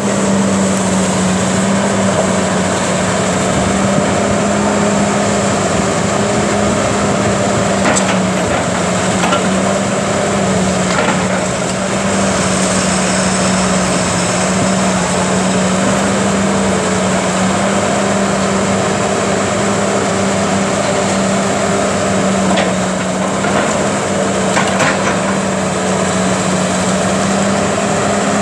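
Cat 330B hydraulic excavator's diesel engine running steadily under load while its demolition grapple works the building, crunching and splintering debris. A few sharp cracks stand out, about eight and eleven seconds in and again near the end.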